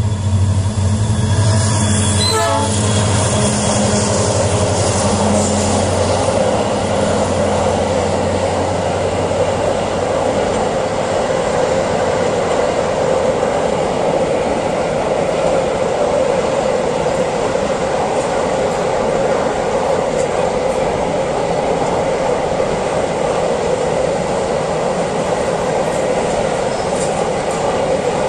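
Freight train of loaded double-deck car-carrier wagons rolling past close by. The locomotive's low, steady hum dominates for the first several seconds, then gives way to a continuous rumble and rattle of wheels on rails as the long string of wagons goes by.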